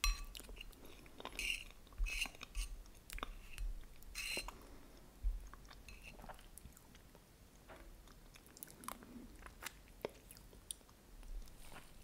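Close-miked chewing and wet mouth sounds of someone eating creamy cheesecake with caramel sauce: soft sticky smacks and clicks, busiest in the first few seconds.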